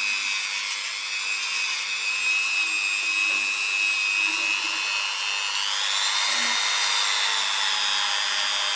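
Dremel rotary tool running a felt polishing wheel loaded with metal polishing compound against a chrome brake caliper piston: a steady high-pitched whine that steps up in pitch about five and a half seconds in.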